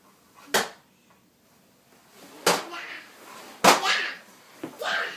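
Four sharp knocks spread out over a few seconds, the third the loudest.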